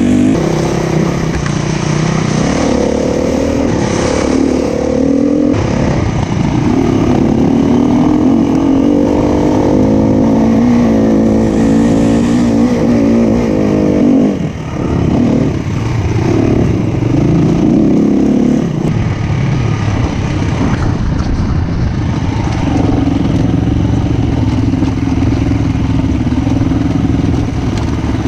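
SWM 300RS single-cylinder four-stroke enduro motorcycle engine being ridden off-road, its revs rising and falling with the throttle. The engine briefly drops off about 14 seconds in, then runs more evenly from about 19 seconds on.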